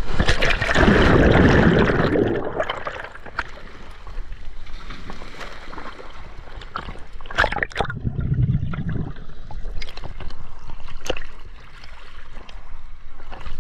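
Sea water splashing and sloshing around an action camera at the surface, with a loud rush of churned water about a second in, just after a diver's entry from the boat, and another surge near the middle. Lighter lapping and scattered knocks of water on the camera fill the rest.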